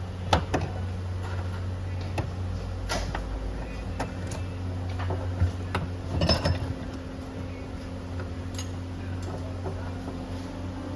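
Scattered metallic clinks and taps of tools and parts being handled, with a cluster of clinks about six seconds in, over a steady low hum.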